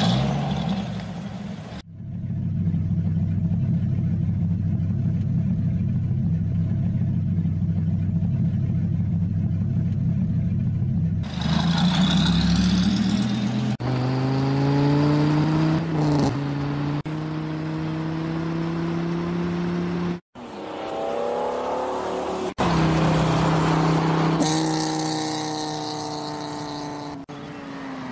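A car engine heard in several abrupt cuts: it runs steadily at first, then rises in pitch as it revs and accelerates.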